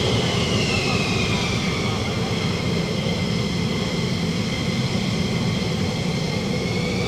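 F-16 fighter jet engine at taxi power as the jet rolls past: a steady rush with a high whine that falls in pitch over the first couple of seconds, holds level, then climbs again near the end.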